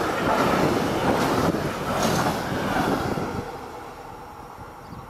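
Container freight train passing close by: steady rumble and clatter of its wagon wheels on the rails. The sound falls away about three seconds in as the last wagon goes by.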